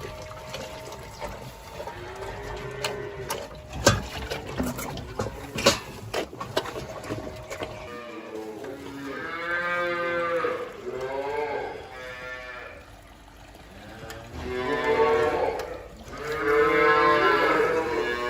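Cattle mooing: four long calls in the second half, the last the loudest. Before them come sharp knocks and clatter.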